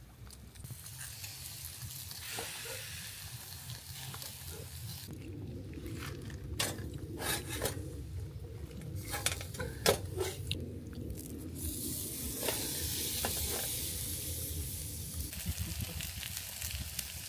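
Fish sizzling on a charcoal grill: a steady hiss, with a run of sharp crackles and clicks from about six to eleven seconds in.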